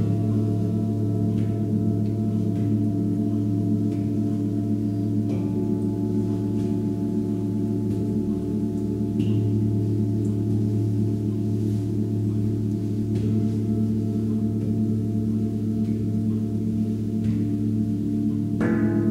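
Tibetan seven-metal singing bowls ringing in long, overlapping deep tones that waver with a slow beat. Another bowl is struck about five seconds in and again just before the end.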